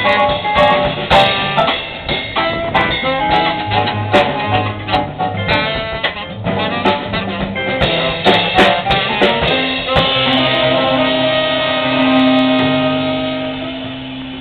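Live jazz combo of tenor saxophone, guitars, keyboard, upright bass and drum kit playing, with busy drum and cymbal hits. About ten seconds in the band settles on a long held final chord that fades near the end.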